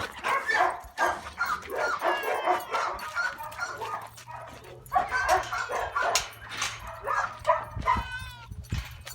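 Puppy barking and yipping over and over, broken by high whining cries; the dog is worked up enough that people try to calm him.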